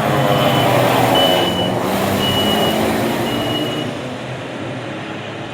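A truck's reversing beeper sounds four times, about once a second, over loud engine rumble. A falling siren tone winds down and fades in the first second or so.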